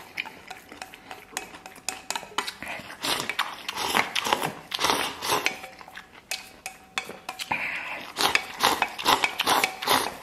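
Wooden chopsticks clicking and scraping against a stainless steel bowl, which rings faintly now and then, as food is shovelled from the rim into the mouth, with slurping and chewing.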